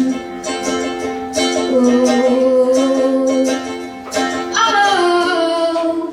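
Female singer holding long sung notes without clear words, over a plucked-string accompaniment such as a ukulele.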